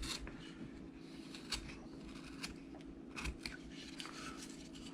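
A number 7 woodcarving gouge taking small hand-pushed cuts into wood, making faint, irregular short crisp clicks and scrapes as the chips are sliced free.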